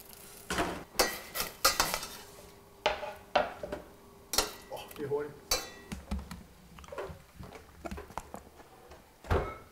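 Metal kitchen utensils and pots clattering and clinking: an irregular series of sharp knocks, several ringing briefly, with a louder knock near the end.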